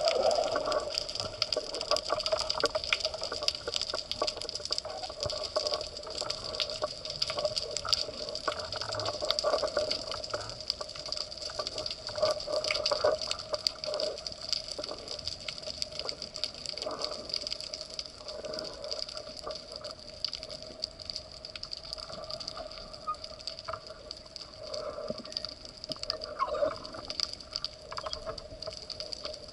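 Underwater ambience: a steady watery hiss with many small crackling clicks throughout.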